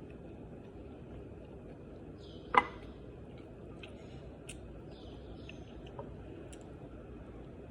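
Faint chirps of small birds over a steady background hum, with one sharp click about two and a half seconds in and a few fainter ticks.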